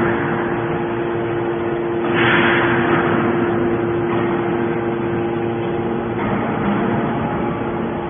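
Hydraulic scrap-metal baler running, its pump giving a steady hum. About two seconds in, a rushing hiss swells and fades over about a second.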